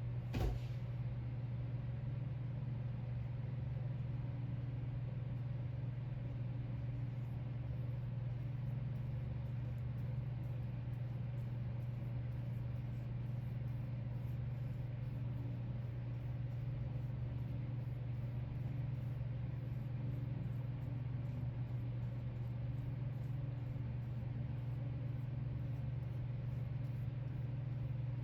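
Steady low mechanical hum, like a motor running, with one sharp click about half a second in.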